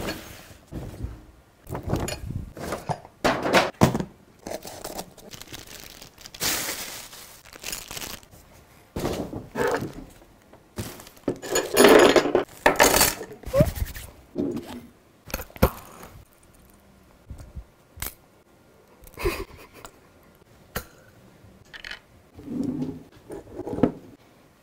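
Unboxing a plastic scale-model airliner: clear plastic packaging crinkling and tearing, loudest about twelve seconds in, among irregular knocks and clicks as the model and its parts are handled and set on a tabletop.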